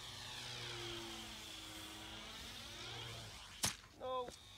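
Radio-controlled Spitfire model's motor and propeller whooshing past on a low flyby, the pitch sweeping as it passes. Near the end come a sharp click and then a brief voiced grunt.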